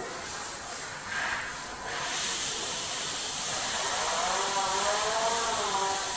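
A steady hiss that gets louder about two seconds in, with a faint wavering voice in the background during the second half.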